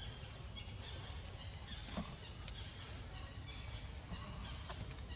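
Faint scattered short animal calls and chirps over steady outdoor background noise.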